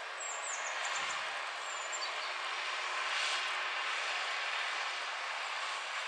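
John Deere 6230 tractor's four-cylinder diesel engine running steadily under load as it pulls a reversible plough through the soil, heard as an even mechanical noise from a distance.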